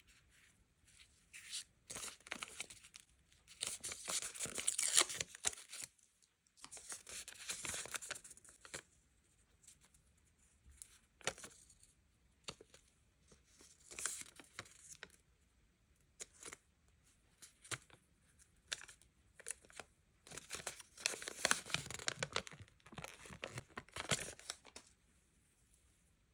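Packaging being torn open and crinkled by hand in a close-up unboxing, in irregular bursts with short pauses between. The longest stretches of tearing come about four to six seconds in, again around seven to eight seconds, and from about twenty to twenty-four seconds.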